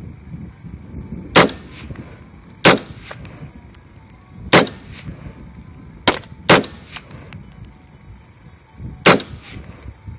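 Six single shots from an LWRC M6 semi-automatic rifle, fired at an uneven pace with two in quick succession about halfway through. Each sharp crack is followed by a short echo.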